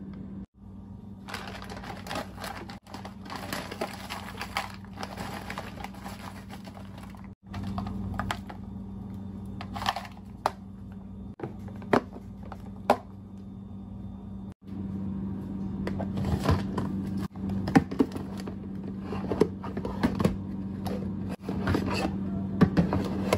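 Plastic food containers and frozen food packages being handled and stacked into a freezer: irregular knocks, scrapes and crinkling, over a steady low hum.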